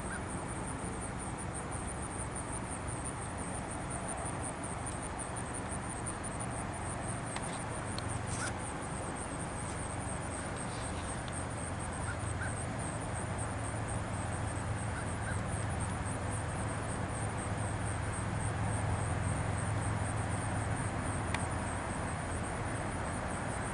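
Outdoor ambience: a steady hiss with a fast, high, evenly repeating pulsing throughout, a low rumble that swells in the second half, and a few faint bird calls.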